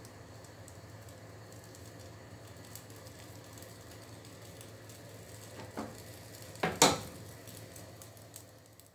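Faint steady sizzle of pancake batter cooking inside a closed hinged double-sided pan on a gas burner. Near the end comes a sharp metallic clatter as the hinged pan is opened.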